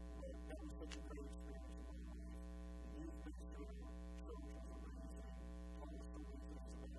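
Steady electrical mains hum with a buzz of many overtones.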